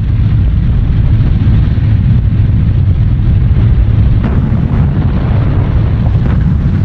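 Piston-engine aircraft droning in a loud, steady low rumble, like a bomber formation overhead, with two faint thuds about four and six seconds in.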